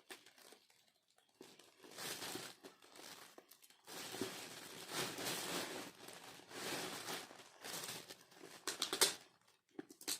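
Gift wrapping paper and packaging crinkling and rustling as presents are handled and unwrapped, in irregular bursts with short tearing sounds.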